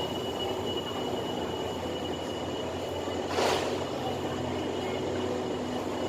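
Diesel passenger train of State Railway of Thailand running, its engine a steady low drone under a thin, steady high squeal, with a single knock about three and a half seconds in.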